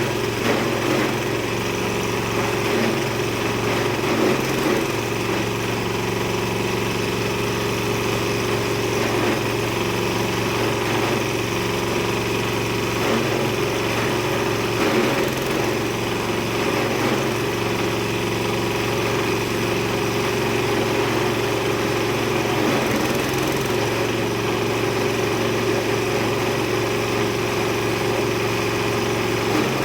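Multi-purpose chopping and grinding machine running steadily with an even, unchanging hum.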